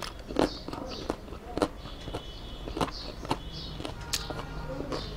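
Close-up eating sounds: wet chewing and lip smacking, with sharp clicks as fingers mix rice with beetroot bharta on a steel plate.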